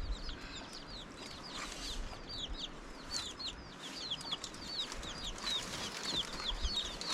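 Chicks peeping: many short, high calls, each falling in pitch, several a second and overlapping.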